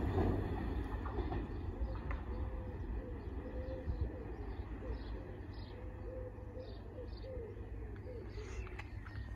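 A pigeon cooing over and over, with small birds chirping higher up, over a low rumble that slowly fades as the freight train draws away.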